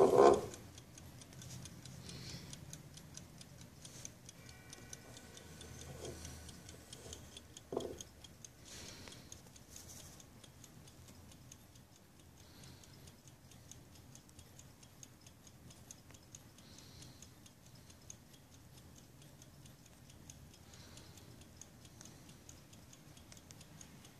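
1930s Oswald German wooden terrier-dog clock's mechanical movement, ticking steadily as it runs. A loud knock right at the start as the clock is handled, and a smaller one about eight seconds in.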